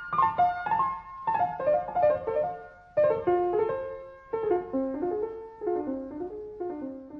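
Piano music: short runs of notes that step downward in pitch, each phrase starting again higher.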